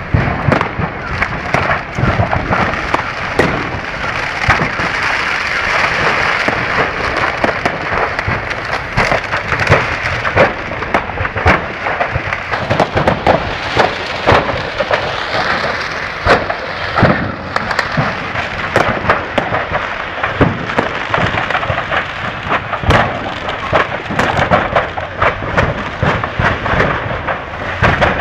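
Fireworks set off by accident, going off in a dense, continuous barrage of crackles and bangs with no pause.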